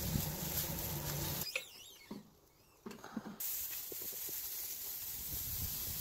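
Hand-pumped pressure sprayer misting liquid onto a brisket on the smoker grate: a steady hiss that starts about halfway through, after an abrupt drop in the background hum and a few soft knocks.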